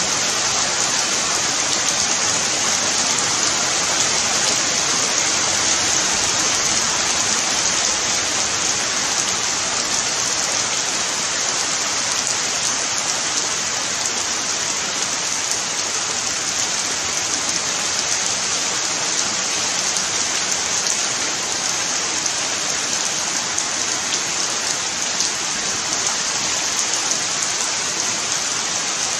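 Heavy rain falling steadily, an even hiss of drops on leaves and ground.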